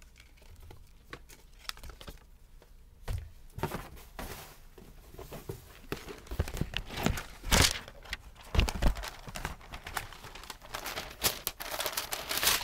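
Rustling and crackling of a wig's fibres and cap being pulled on over a wig cap and adjusted by hand: irregular scratchy crackles, sparse at first and denser and louder from about three seconds in.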